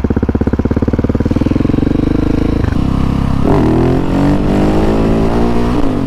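Husqvarna 701 Supermoto's single-cylinder engine pulling away hard. Its low, pulsing revs climb steadily, dip sharply about two and a half seconds in as it shifts up, then climb again. It is very loud through a Wings exhaust with no baffle, which the owner blames on that and the open airbox, and he thinks the exhaust packing is dead.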